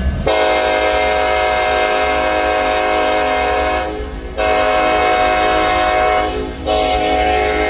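Norfolk Southern freight locomotive's air horn sounding a chord of several notes in three blasts: a long one of about three and a half seconds, a second of about two seconds, and a third still sounding at the end, over the low rumble of the passing diesel locomotives.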